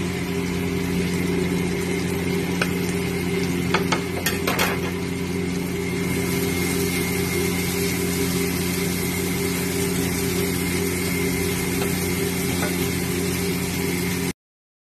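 Chicken and peas frying in a pan: a steady sizzle over a low steady hum, with a few clinks of a spatula against the pan about two and a half and four to four and a half seconds in. The sound stops abruptly near the end.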